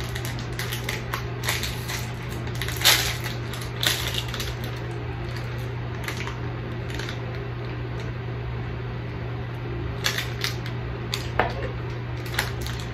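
Scattered small crinkles and clicks of a foil snack wrapper being handled while a biscuit cake is eaten, over a steady low hum. The clicks come in a cluster near the end.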